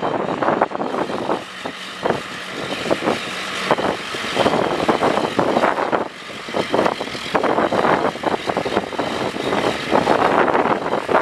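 Diesel engine of a working construction loader, its loudness dipping and rising several times as the machine works.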